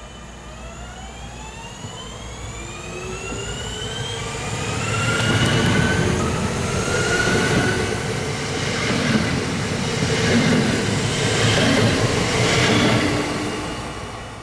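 Electric multiple unit passing at speed. A rising electric whine comes from its drive as it approaches, then a loud rumble of wheels on the rails as the carriages go by, fading near the end.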